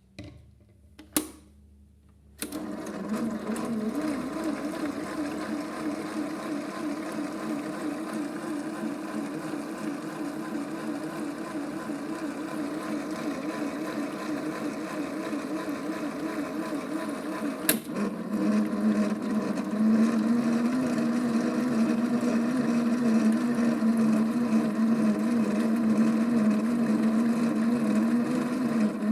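Small electric motor of a vintage Theo Klein Miele toy washing machine switched on with a click and running with a steady, wavering hum as it turns the drum. About two thirds of the way through another click comes, and the hum then runs louder and steadier.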